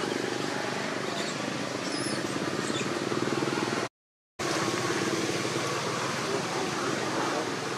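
Steady outdoor background noise with a low hum and a few faint high-pitched squeaks. The sound drops out completely for about half a second about four seconds in.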